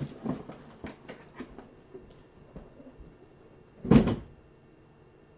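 Handling noises as items are moved and set aside: several light knocks and rustles, then one louder thump about four seconds in.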